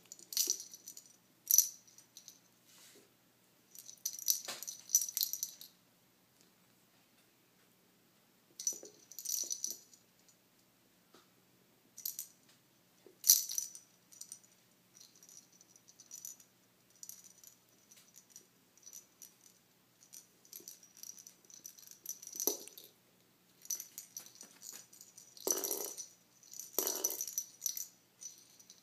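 A wand cat toy's ball-and-feather lure rattling in short, separate bursts as it is swung and batted by a kitten, with quiet gaps between. The loudest bursts come near the end.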